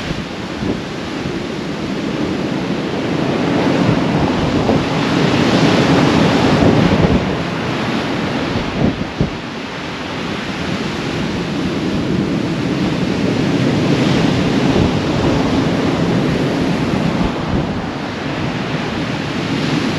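Heavy surf from big storm swells breaking and washing up the beach, a loud continuous rush that swells and eases as each wave comes in, with gale-force wind buffeting the microphone.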